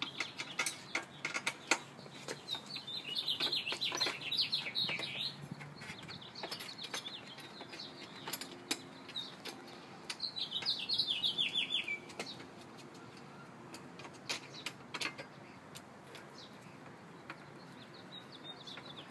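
Light, scattered metallic clicks of a hex key turning cap screws into a steel motorcycle cargo rack. A bird sings two runs of quick falling chirps, a few seconds in and again about ten seconds in.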